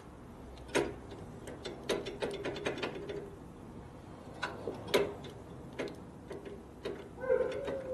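Clicks and knocks of a motorcycle brake master cylinder and its lever being pumped to build pressure while the hydraulic drum brake is bled; the piston is slow to return, so it only draws a vacuum. A long steady tone begins near the end.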